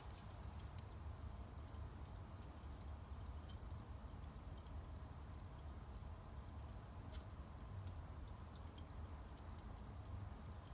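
Small charcoal fire crackling faintly: sparse, irregular little pops and ticks over a low steady rumble.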